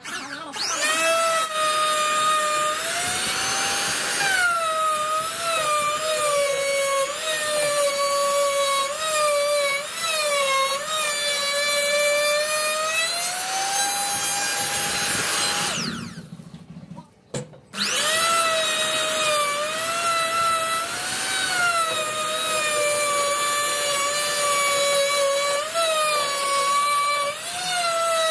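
An electric woodworking power tool cutting wood. The motor whine sags and wavers under load, rises to a higher, steady pitch when it runs free, stops for about two seconds a little past halfway, then starts up and cuts again.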